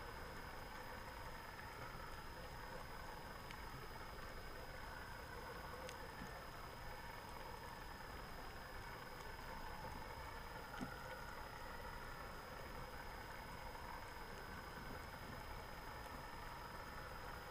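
Steady muffled underwater noise picked up by the camera in its housing, with a thin steady high whine, faint scattered ticks and one sharp click about eleven seconds in.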